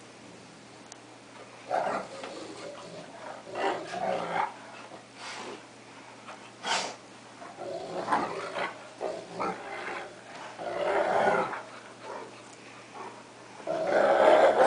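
A cocker spaniel and a wolf–Akita mix play-fighting, growling in short, irregular bursts, the loudest run near the end. The growling sounds mean but is play.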